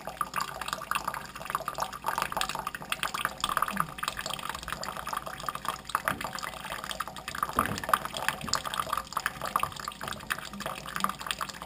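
Kitchen faucet running a thin stream of water that splashes on a hand and into a stainless steel sink, a steady patter of small splashes and drips.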